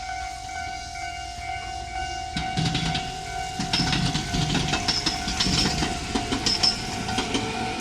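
Level-crossing warning bell ringing steadily as a Tobu electric train pulls out over the crossing. About two seconds in, the wheels start clattering over the rail joints, with a few brief high wheel squeals.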